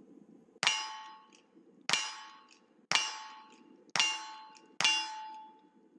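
Five gunshots about a second apart, each ringing a steel target with a metallic tone that fades before the next shot.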